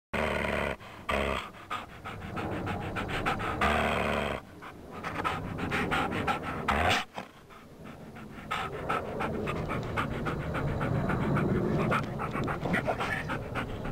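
Dog panting in quick, even breaths.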